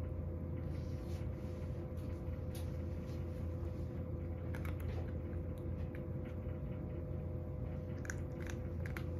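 A cat eating from a bowl, chewing with scattered small crunching clicks that come more often near the end, over a steady low hum.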